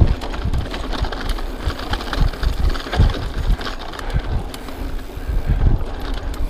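Rockrider XC50 mountain bike rolling over a rough dirt track, heard through a handlebar-mounted camera: the tyres crunch on the ground, and the bike rattles and knocks over the bumps, with repeated heavy jolts.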